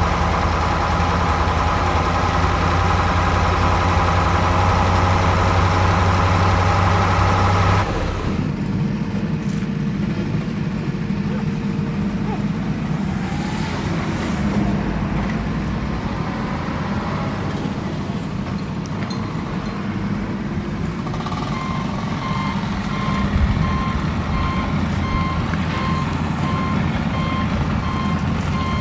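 A construction vehicle's engine running steadily, changing in character about a third of the way in. Later, a reversing alarm starts beeping steadily over the engine.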